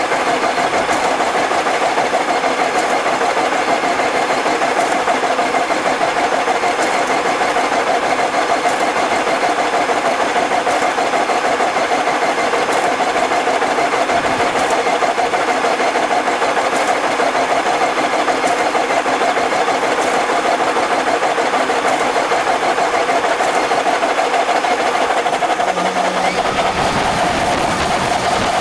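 Tractor engine running steadily under load while pulling a Massey Ferguson 1840 small square baler, with faint regular clicks from the baler's working parts. A lower steady tone joins near the end.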